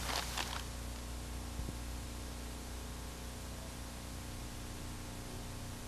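Steady background hiss with a low electrical hum underneath, the noise floor of the recording, with a faint tick about a second and a half in.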